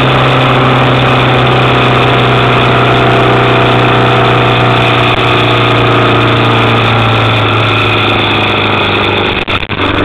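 Motorcycle engine running at steady low revs, heard close from on board while rolling slowly, its pitch dropping slightly about two thirds of the way through. Near the end the sound briefly cuts out twice.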